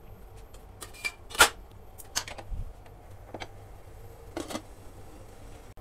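Stainless steel cookware clinking and knocking as a steel dish of batter is set down into a steamer tier and the steamer's glass lid is brought over it. There are a handful of separate sharp metal clicks, the loudest about one and a half seconds in.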